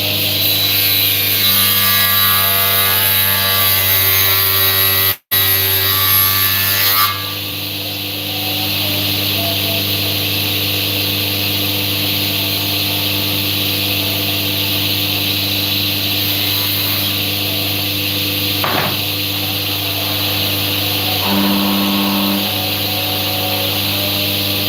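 Woodworking power tool running steadily with a constant hum and hiss. The sound drops out for an instant about five seconds in, and its character changes a couple of seconds later.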